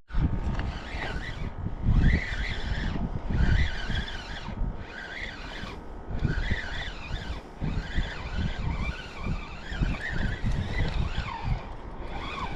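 Birds calling over and over in short arching cries, over a constant low rumble.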